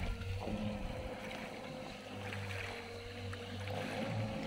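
Small boat's electric outboard motor running across the water as a faint steady whine, over wind rumbling on the microphone and small waves lapping at the shore.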